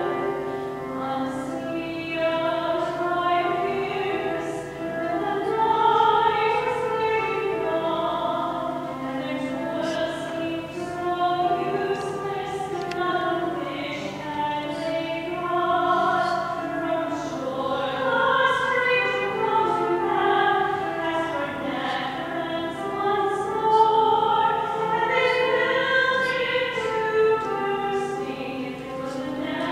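A choir singing a slow sacred piece, with several voices holding long, overlapping notes, as offertory music during Mass.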